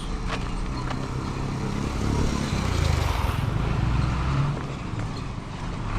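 Passing motor vehicle on the road: its engine and road noise grow louder about two seconds in and ease off after three and a half seconds.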